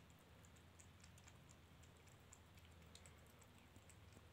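Kitten eating from a plate: faint, irregular small clicks of its mouth at the food, over a low steady hum.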